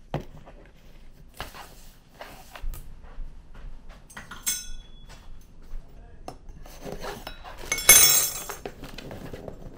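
Cardboard shipping box handled on a granite countertop: scattered light taps and knocks, with a louder burst of cardboard noise near the end as the box is being opened.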